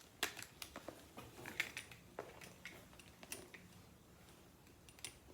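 Faint handling noises of a handbag being brought out of its packaging: scattered light clicks and soft rustling, irregular throughout.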